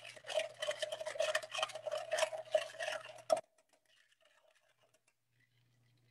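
Bar spoon stirring ice in a stainless steel mixing tin to chill a cocktail: rapid, continuous clinking of ice against the metal over a steady ringing note. It stops abruptly about three and a half seconds in.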